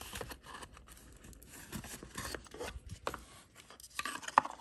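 Rustling, scraping and small clicks from handling a boxed jewelry piece and its gift box, with one sharper click near the end.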